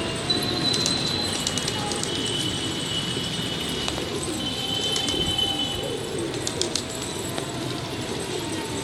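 A flock of Indian high flyer pigeons cooing, many soft wavering coos overlapping, with thin high-pitched whistling tones over them at times.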